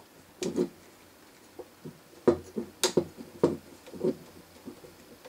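Irregular small clicks and knocks of a small screwdriver and model ladder-frame parts as a screw is worked into the frame, about a dozen taps, the sharpest near the middle.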